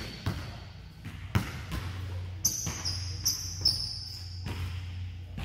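A basketball dribbled on a hardwood gym floor, a few irregular bounces, with sneakers squeaking sharply several times in quick succession past the middle as the players move.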